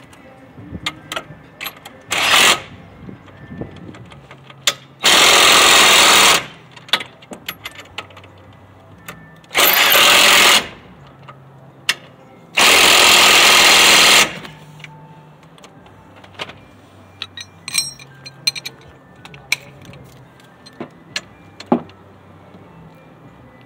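Impact wrench run in four bursts, a short one about two seconds in and then three of a second or more, driving home the bolts of a new strut. Light clicks and tool clatter fill the gaps between.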